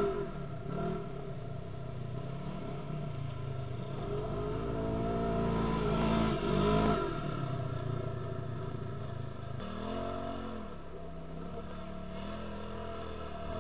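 Side-by-side UTV engine revving up and down as it spins doughnuts on dirt, its pitch rising and falling several times, loudest about six to seven seconds in.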